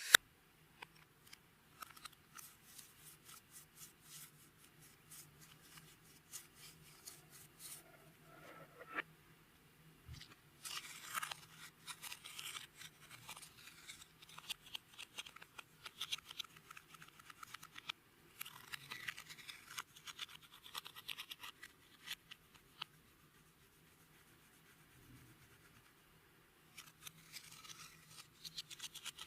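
Clear slime being worked by hand, with makeup and glitter mixed in: faint bouts of quick, fine sticky crackling and clicking, stopping and starting several times.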